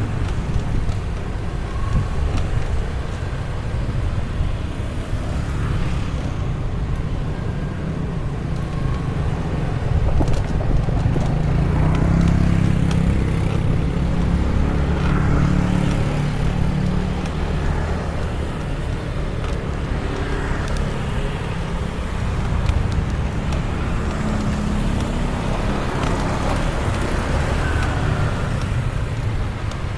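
Street traffic heard from a moving bicycle, with wind rumbling on the microphone throughout. A louder engine passes from about ten to seventeen seconds in.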